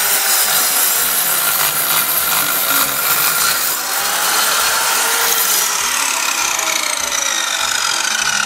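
Electric slide circular saw (PA SMS-190T) cutting at an angle through a thick wooden deck board. About six seconds in, the cutting noise eases and the motor's whine falls in pitch.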